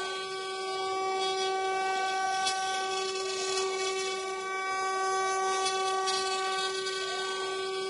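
The 800 W spindles of a twin-spindle mini CNC router whine at a steady high pitch while a bit 3D-mills wood. The rasp of the cut rises and falls over the whine.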